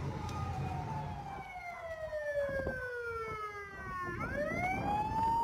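Emergency vehicle siren wailing: one slow falling tone over about four seconds, then rising again near the end.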